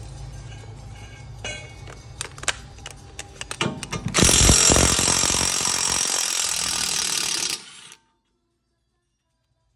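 Cordless impact wrench hammering on a car wheel hub's centre bolt to undo it, starting about four seconds in, running for about three and a half seconds and cutting off suddenly. Before it, scattered metal clicks and clinks of the socket against the hub.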